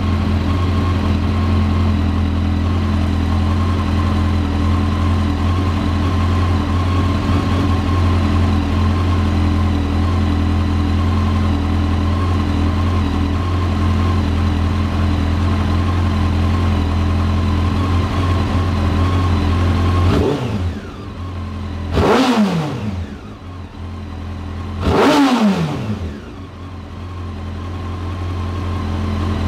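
Honda CBR929RR's inline-four idling steadily through a Two Brothers Racing aluminium C-Series slip-on exhaust, with a deep, mellow note. About two-thirds of the way in it is revved sharply twice, a few seconds apart, each rev falling straight back to idle.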